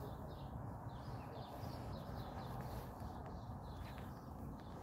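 Birds chirping faintly in short scattered calls over a steady low background rumble.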